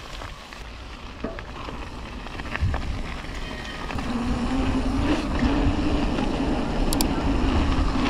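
A motor vehicle's engine drawing near and growing louder, settling into a steady drone over a low rumble from about halfway through.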